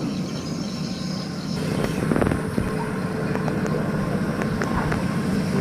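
Heavy diesel engine running steadily, with a few light knocks over it.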